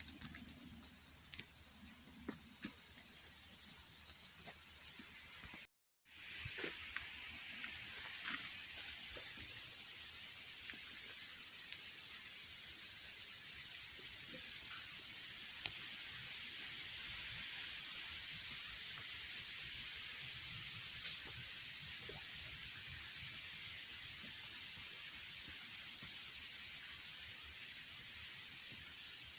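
Outdoor ambience dominated by a steady, high-pitched hiss, with a few faint clicks beneath it. The sound cuts out completely for a moment about six seconds in, then resumes.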